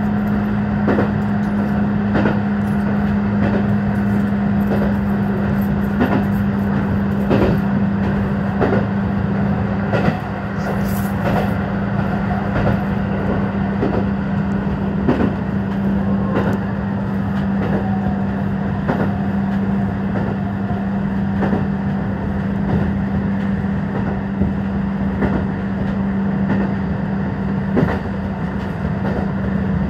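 KiHa 150 diesel railcar running, heard from inside the driver's cab: a steady engine hum with wheels clicking over rail joints about once a second.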